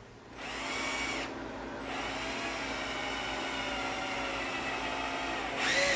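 Cordless drill boring into a sandal wedge: the motor spins up and runs for about a second, stops, then runs steadily for about four seconds. A short, louder sound comes near the end.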